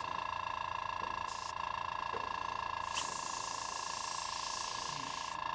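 Airbrush blowing air to push watery, flow-aid-thinned paint around the surface: a short hiss about a second and a half in, then a longer hiss of a couple of seconds from about three seconds in, over a steady high-pitched hum.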